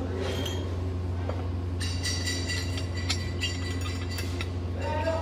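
Steel welding plates and a metal rod clinking lightly as they are handled and set in place, with a few sharp clicks. A steady low electrical hum runs underneath, and a steady high whine starts about two seconds in.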